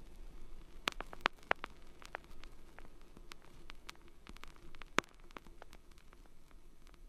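Experimental electronic noise music: sparse, irregular clicks and crackles over a low steady hum and faint hiss, with a cluster of sharp clicks about a second in and a single loud click about five seconds in.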